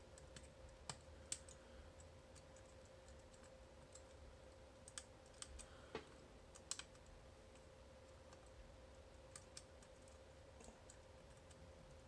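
Faint, scattered small metallic clicks, about a dozen spread irregularly: the fingers of a tubular lock impressioning tool being pressed down one at a time onto the pins of a tubular lock under tension, single-pin picking it, each click a binding pin being pushed.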